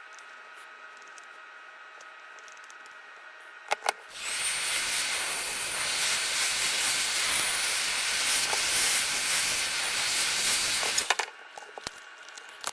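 A loud, steady hiss of rushing air lasting about seven seconds. It starts just after two light clicks and cuts off suddenly.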